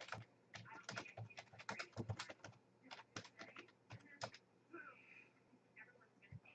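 Quick, irregular light clicks of typing on a computer keyboard, stopping about four and a half seconds in. Faint speech follows near the end.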